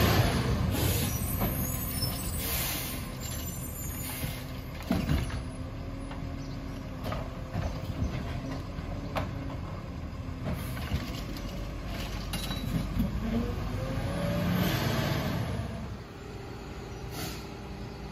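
Engine of a Crane Carrier Labrie Expert automated side-loader garbage truck pulling away and fading into the distance, with short hisses of its air brakes.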